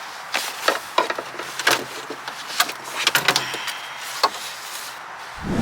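Irregular sharp clicks and knocks from a car door's handle and lock mechanism being worked, about a dozen in all, over a steady hiss.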